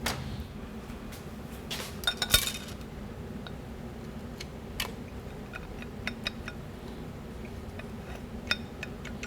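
Metal clutch plates clinking and tapping as the forward clutch pack of a 4L60E transmission input drum is stacked by hand, with a cluster of sharper clinks about two seconds in and lighter scattered taps after.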